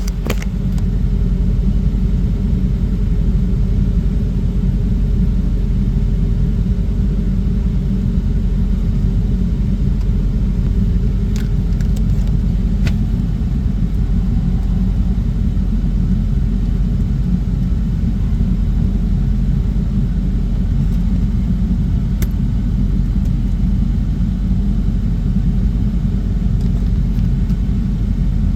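Truck engine running with a steady low rumble, with a few faint clicks around the middle.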